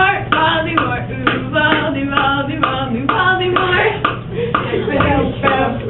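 Young voices singing a rhythmic chant in an even pulse of about two syllables a second.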